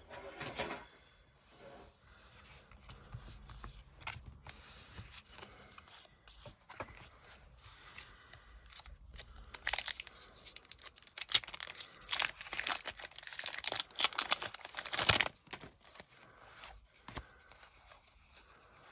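A foil Pokémon booster pack wrapper being torn open and crinkled. Light rustling at first, then a run of sharp crackling tears in the second half.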